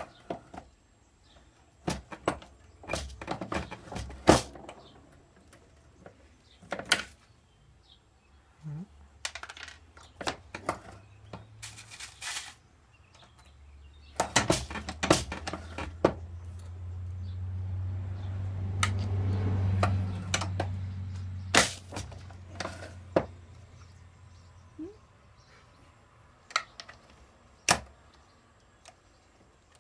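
MEC shotshell reloading press worked by hand: irregular metallic clicks, clacks and knocks as the handle is pulled, the charge bar slid and hulls and plastic wads handled. A low hum swells and fades in the middle.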